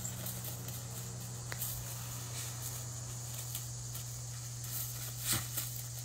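Faint scuffing and pattering of a terrier's paws scrabbling on loose gravel, with a few light clicks, over a steady low hum.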